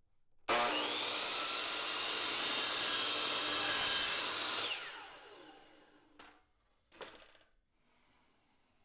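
DeWalt 10-inch compound miter saw starting suddenly and cutting through a strip of PVC decking for about four seconds, then the motor winding down with a falling whine. Two short knocks follow.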